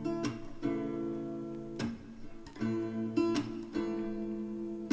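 Background music: an acoustic guitar strumming chords in an instrumental gap of a song.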